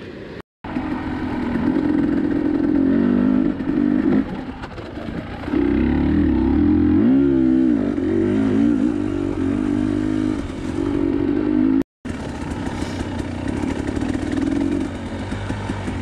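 KTM 300 TPI two-stroke dirt bike engine running while it is ridden up a single-track trail, the revs rising and falling with the throttle, with a sharp rev up and back down about seven seconds in. The sound drops out briefly twice, about half a second in and near twelve seconds.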